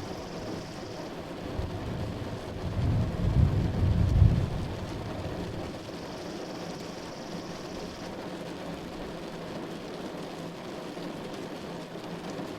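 Steady rain with a low rumble of thunder that swells about three seconds in, peaks around four seconds, then fades back into the rain.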